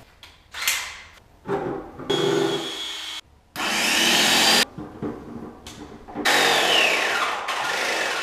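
Graco X7 airless paint sprayer's electric pump running in short spells while it is flushed and primed, with fluid rushing out of the spray gun into a bucket. The sound starts and stops abruptly several times and is steadiest and loudest for the last couple of seconds.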